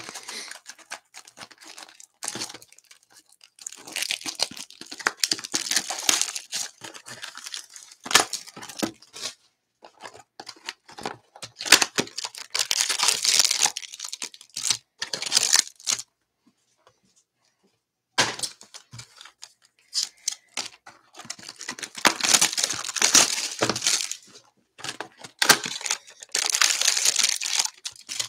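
Plastic shrink wrap being torn and crinkled off a sealed box of baseball cards, then the cardboard box being opened. The tearing and crackling comes in bursts with short pauses, with a quiet gap of about two seconds midway.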